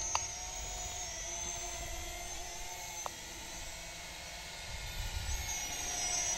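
Snaptain SP650 small quadcopter drone in flight, its motors and propellers giving a faint thin high whine that grows louder near the end.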